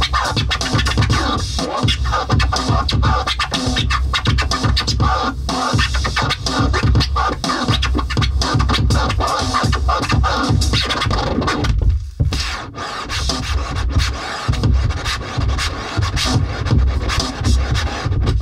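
Electronic music played live on a Native Instruments Maschine groovebox: a bass-heavy beat with scratching cut across it. The music drops out briefly about two-thirds of the way through.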